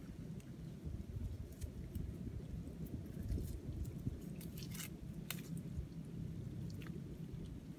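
Scattered small clicks and crackles from hands handling a freshly caught mud crab as its claws are tied, over a steady low rumble.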